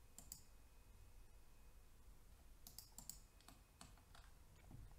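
Faint clicks of a computer mouse and keyboard against near silence: a couple near the start, a quick run of clicks about three seconds in, then a few single clicks.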